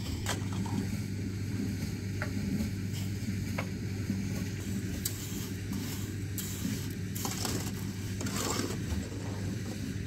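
Scraping and clicking of masonry hand work, tools working cement mortar and concrete blocks, with a few longer scrapes in the second half, over a steady low hum.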